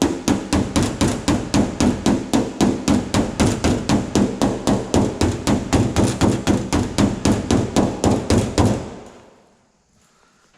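Body hammer striking the sheet-steel skin of a car door in a fast, even run of blows, about four or five a second. It works a high spot along the door's body line, and the blows stop about nine seconds in, the ring fading out.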